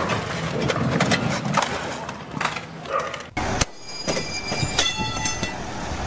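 Vehicle noise, loud and rattling, with many short clicks. There is an abrupt cut about three and a half seconds in, after which several high steady tones sound briefly over the noise.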